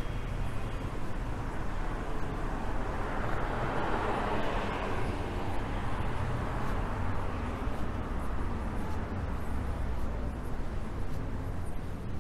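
A car passing by over a steady low traffic rumble, its noise swelling about three seconds in and fading away a few seconds later.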